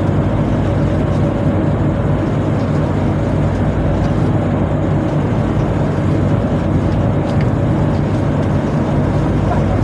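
Steady, loud drone of a tugboat's engines and deck machinery running at an even pace.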